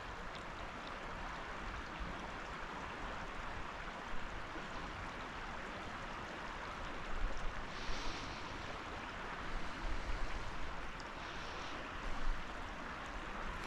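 Creek water running steadily over the streambed.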